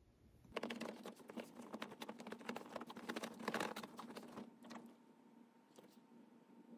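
A small dog pawing and scratching at bed blankets while it circles to settle, a quick run of scratching and rustling that starts about half a second in and thins to a few scattered scratches after about four and a half seconds.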